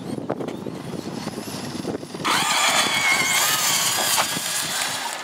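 Electric brushless-motored RC cars launching in a drag race: a high-pitched motor whine breaks out suddenly about two seconds in, wavering in pitch as they accelerate, and dies down near the end as they pull away.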